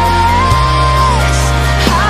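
A young boy singing a worship song into a microphone, gliding up to a long held high note, over a backing of sustained keyboard and bass chords that shift to a new chord about a quarter of the way in.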